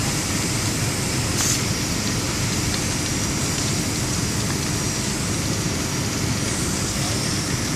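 Steady rushing noise from a fully involved house fire and the fire hoses spraying water onto it, over a low engine rumble. A brief sharp snap comes about one and a half seconds in.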